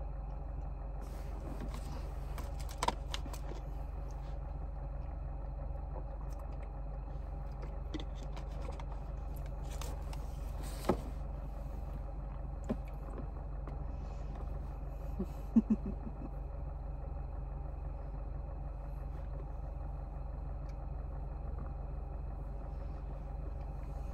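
Steady low hum of a car idling, heard from inside the cabin. A few small clicks and knocks from food being handled and eaten cut through it, with the loudest a short cluster a little past halfway.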